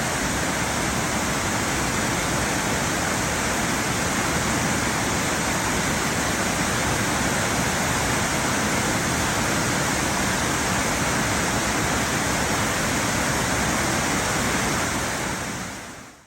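Steady rushing roar of Brandywine Falls, a waterfall about 60 feet tall carrying a heavy flow of water. It fades out just before the end.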